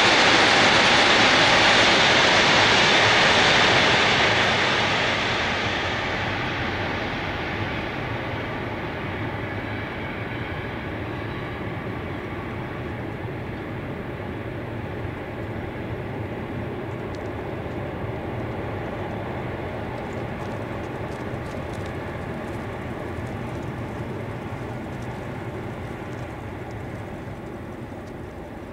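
Container freight train's wagons rolling along the track, a steady rumble and rush of wheels on rail that is loudest for the first few seconds and then slowly fades as the train pulls away into the tunnel.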